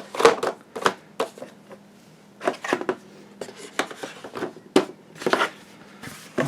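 Board game contents being handled: an irregular run of knocks, taps and rustles as cards, cardboard pieces and boxes are picked up and set down.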